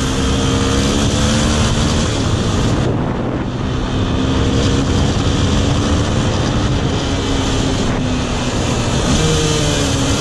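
Police motorcycle's engine running under way, its note drifting up and down a little with the throttle, with wind and road noise rushing past the microphone.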